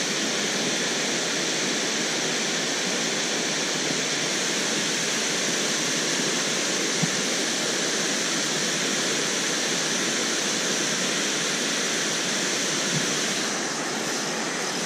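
Steady rush of water pouring over a concrete low-head dam spillway.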